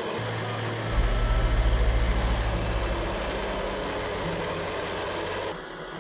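Vermeer HG6000 mulch grinder's 530-horsepower engine running under load, with a deep rhythmic pulsing that swells about a second in and eases off by about three seconds. Near the end the sound drops abruptly to a quieter machine hum.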